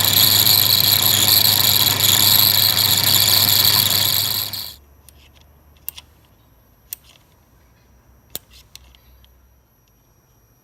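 A power cutting tool runs steadily with a high-pitched whine while cutting grooves in a rudder-pedal part. It stops abruptly about two-thirds of the way in, and a few light clicks and taps follow.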